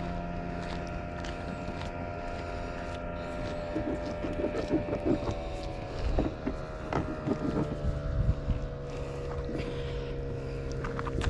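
Steady drone of an engine running, its pitch easing down slightly about seven seconds in.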